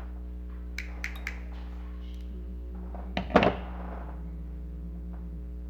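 Objects being handled on a work surface: three light clicks about a second in, then a louder knock a little after three seconds, over a steady low electrical hum.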